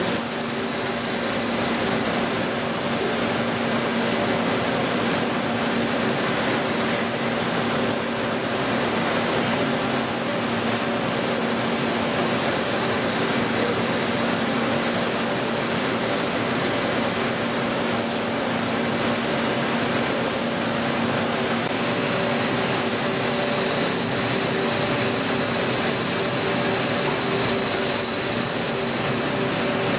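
DMG Mori Seiki mill-turn machining center running, with the turning spindle cutting a metal workpiece: a steady mechanical hum with a few steady tones over a hiss. Its tones shift about two-thirds of the way through.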